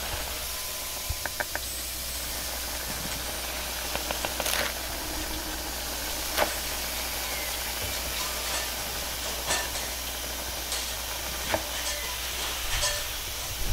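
Steady hiss of a wok station's gas burner and hot oil in a steel wok, with a few sharp clicks and knocks of a metal ladle against the wok.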